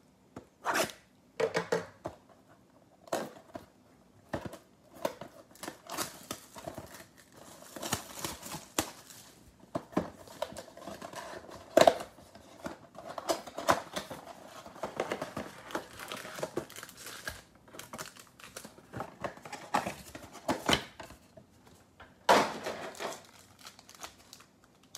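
Plastic shrink-wrap being slit, torn and crumpled off a cardboard trading-card box, then the box opened and the foil card packs handled: irregular crinkling, tearing and scraping with a few sharper snaps.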